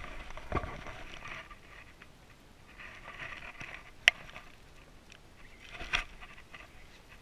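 Knocks and scuffs of people moving on a small boat while a fish is fought. There is a thump just after the start, a sharp click about four seconds in, and another thump near six seconds, over a light patter.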